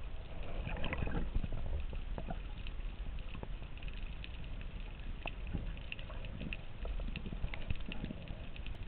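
Underwater ambience picked up through a camera's waterproof housing: a dense crackle of small sharp clicks over a low rumble of moving water.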